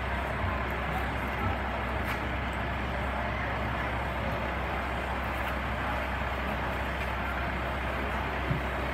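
Farm tractor's diesel engine running steadily, with a constant low hum under an even mechanical noise.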